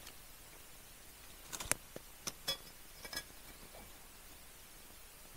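A pan being set over a campfire: a handful of light metal clinks and knocks, the loudest about a second and a half in, all over within two seconds.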